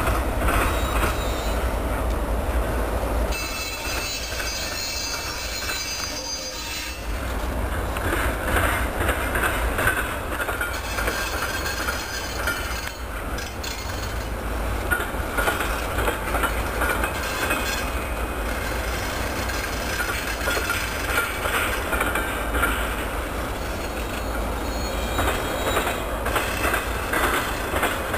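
A CSX double-stack container train led by two diesel locomotives rolling slowly through a junction. Steel wheels squeal on the rails in thin, high tones that come and go, over a steady low rumble of engines and cars.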